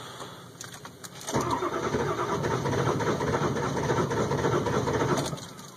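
2002 Ford F350's 7.3 Powerstroke V8 diesel cranking on the starter for about four seconds without catching, a cold hard start. The cranking begins about a second in and cuts off near the end.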